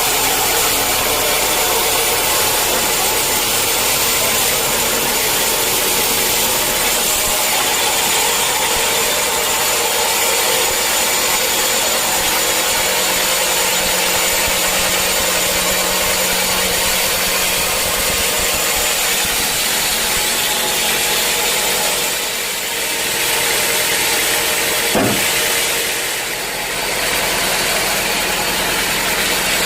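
Sawmill saw running steadily with a high, even whine over the machine noise. A single sharp knock comes about 25 seconds in.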